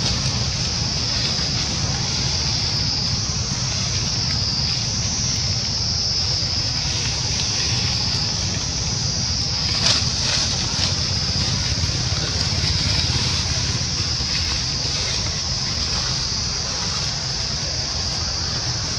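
Outdoor forest ambience: a steady high-pitched insect chorus over a low rumbling noise, with one brief knock about ten seconds in.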